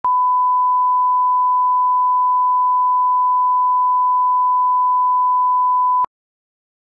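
Broadcast line-up reference tone played with colour bars: one steady, loud beep at a single pitch that cuts off suddenly about six seconds in.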